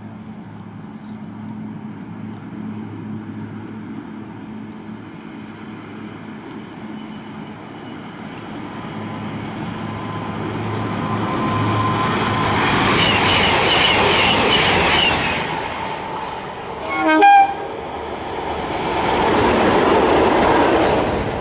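A pair of Class 37 diesel locomotives with the nuclear flask train approach and pass at speed, their English Electric V12 engines and wheels growing steadily louder. About three-quarters of the way through, the horn gives one short blast, then the locomotives go by with a rush of engine and wheel noise.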